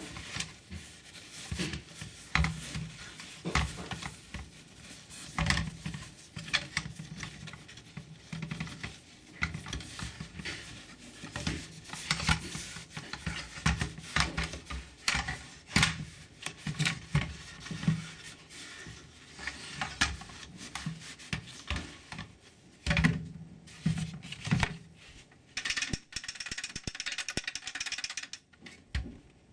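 Irregular close-up rubbing, scraping and tapping, as of objects being handled, with no steady rhythm.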